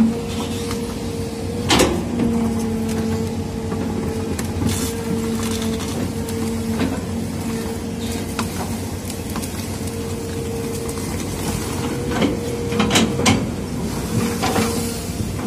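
Excavator's diesel engine running at a steady drone while the bucket digs and tears out a root stump. Sharp cracks and knocks of wood and roots break about two seconds in and again in a cluster near the end.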